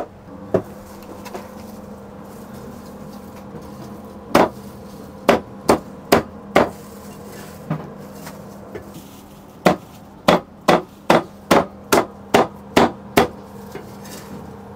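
Chinese cleaver chopping a roast duck into pieces on a round chopping block: sharp single chops, five or so about four to seven seconds in, then a quicker run of about two or three a second from about ten to thirteen seconds in. A steady low hum runs underneath.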